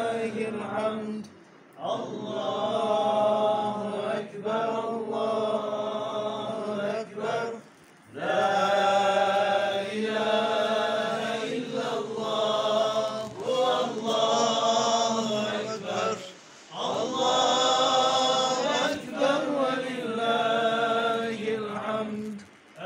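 A group of men chanting a religious chant together in long, held phrases that break off briefly about every seven or eight seconds.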